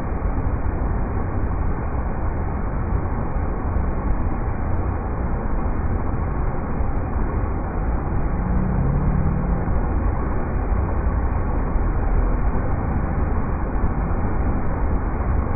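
River rapids rushing: a steady, even wash of water noise with a deep rumble and no breaks.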